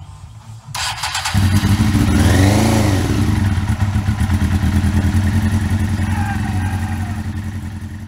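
1999 Suzuki GSX-R600 SRAD's inline-four engine: the starter cranks briefly and the engine catches a little over a second in. It is blipped once, pitch rising and falling, then settles into a steady idle.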